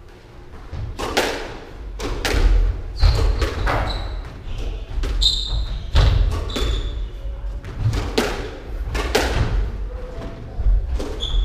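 Squash rally: sharp cracks of the ball off rackets and walls at an irregular pace, with thuds of footsteps on the wooden court floor and short, high squeaks of court shoes.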